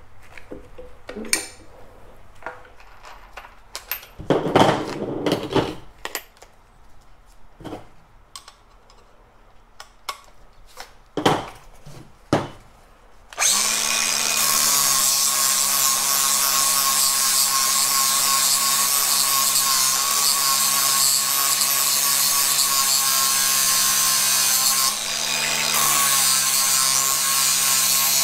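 Scattered metal clinks and knocks of parts and tools being handled. About halfway through, an angle grinder starts suddenly and runs steadily, grinding on a cut-off stainless steel muffler inlet piece, with a brief dip near the end.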